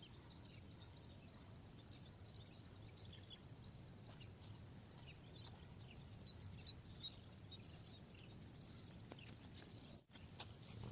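Near-silent outdoor ambience: a faint, steady, high insect trill with a few faint chirps over low background noise. The sound drops out briefly about ten seconds in.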